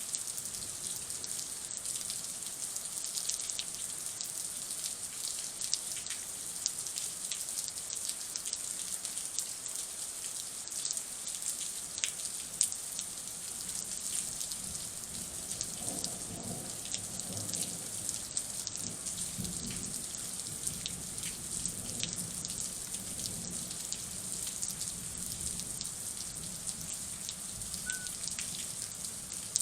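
Rain falling steadily, with many individual drops tapping sharply close by. A low rumble swells for several seconds a little past the middle.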